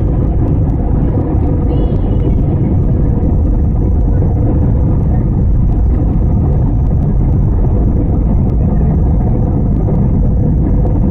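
Steady, loud rumble of a jet airliner's engines and rushing air, with a faint steady hum.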